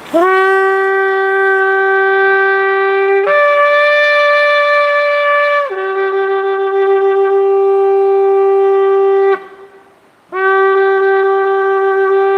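A 107 cm jumbo shofar blown in long held notes: a low note that scoops up as it starts, a jump to a higher note about three seconds in, a drop back to the low note, a short break for breath near ten seconds, then the low note again.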